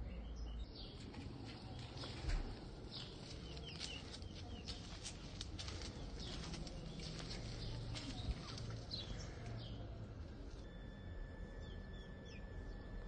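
Small birds chirping in quick, scattered calls over a low rumble, with a single thump about two seconds in. Near the end the chirps thin out and a steady high tone comes in.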